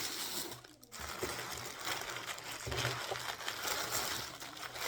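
Protective packaging wrap crinkling and rustling as a wrapped item is pulled free by hand, with a brief pause under a second in.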